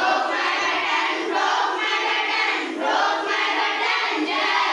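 A group of children chanting an action rhyme together in chorus, many voices loosely in time, with hand claps mixed in.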